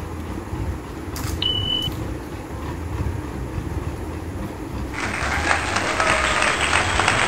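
An added applause sound effect starts about five seconds in and cuts off abruptly, over a steady low rumble, with a short electronic beep about a second and a half in.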